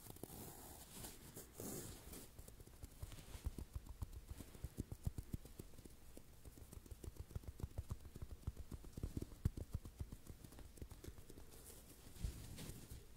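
Fingers handling foam blocks close to the microphones: a dense run of soft, rapid, irregular taps and squishes from about three seconds in, with some scratchy rubbing near the start.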